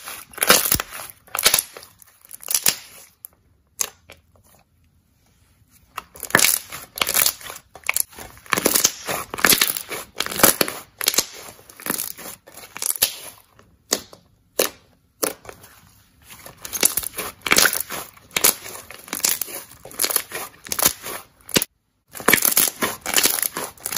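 Thick pink slime being squeezed in the fists and pressed with the fingers, giving dense runs of small pops and clicks from air worked through it. There is a short pause about four seconds in and brief lulls later.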